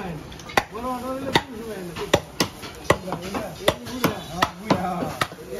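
Heavy butcher's cleaver chopping into a beef leg on a chopping block: about ten sharp chops, roughly two a second, with voices talking between the strikes.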